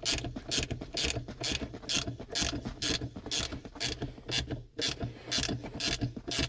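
Ratcheting 13mm spanner clicking in quick runs, about two strokes a second, as it turns the handbrake cable adjuster nut tight.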